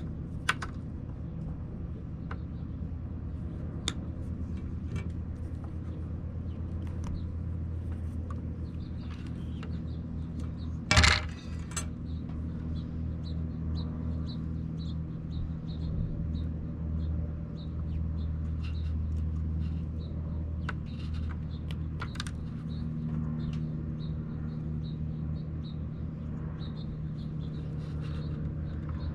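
Scattered small clicks and clinks from handling parts and tools while wiring fans, over a steady low hum, with one louder short clatter about eleven seconds in.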